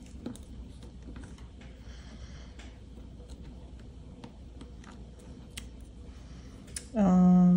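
Faint taps and clicks of a clear acrylic stamp block pressed down by hand onto paper and lifted off, over a low steady hum. Near the end comes a short, louder hummed 'mm' from a voice, which holds for about a second.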